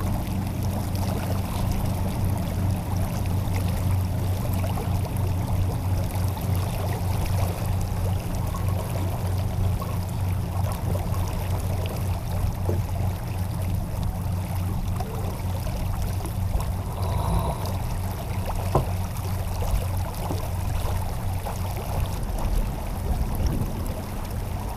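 Water rushing and splashing along the hull of a J-35 sailboat under sail, over a steady low rumble.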